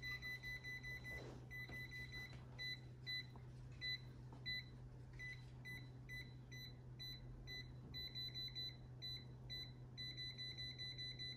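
Kaiweets ST500Y multimeter's non-contact voltage detector beeping: short high beeps a few times a second, at times running together into longer tones, as it senses live AC voltage on a plugged-in power cord.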